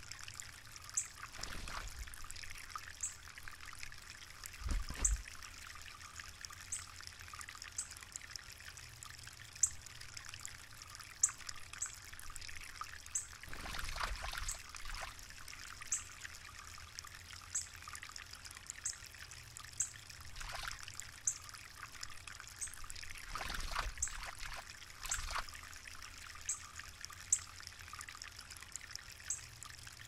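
Female northern cardinal bathing in a shallow stone bird bath, splashing the water in several short bouts.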